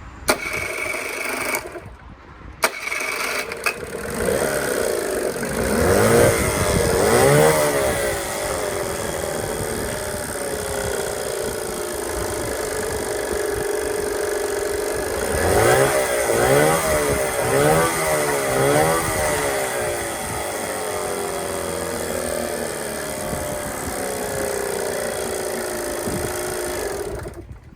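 Yamaha 6 hp outboard motor starting up, with a short break about two seconds in before it runs on. The revs rise and fall in quick repeated throttle blips twice, then it settles to a steady idle, and the sound drops away just before the end.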